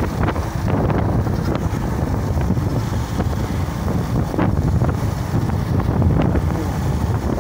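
Wind buffeting the microphone over the steady low rumble of a vehicle driving along a road, with a few brief knocks or rattles.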